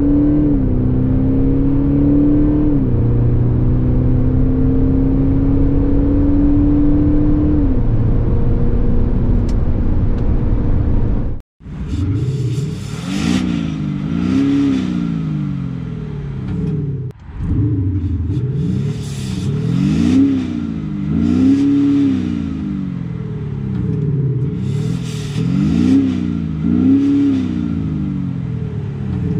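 Audi SQ5 TDI's 3.0 V6 diesel accelerating through the gears, its pitch climbing and dropping back at three upshifts. After a sudden cut it is revved repeatedly at standstill, with short blips rising and falling about every second and a half. The exhaust sound actuator is low or off at first, then set to medium from about 17 seconds in.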